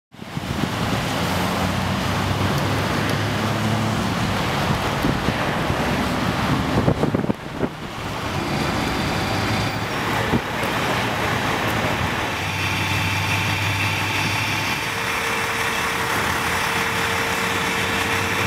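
Traffic noise at a roadside, with vehicles and heavy engines running throughout. A steady hum joins in about fifteen seconds in.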